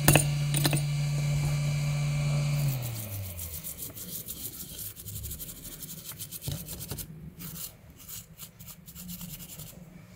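A few clicks as a brush is dipped into a pump-top solvent dispenser, while a steady machine hum falls in pitch and stops about three seconds in. Then a brush scrubbing a circuit board, in quick strokes toward the end.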